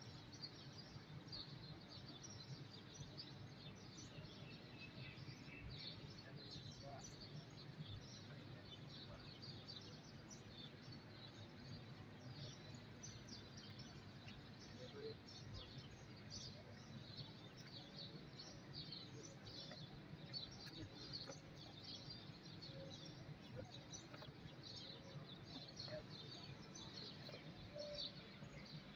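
Faint chirping of small birds, many short high chirps scattered throughout, over a low steady background hum.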